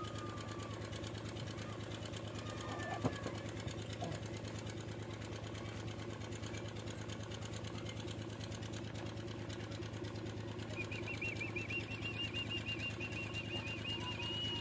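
A machine running steadily with a fast, even rattle. There is a sharp click about three seconds in, and a high warbling tone joins in the last few seconds.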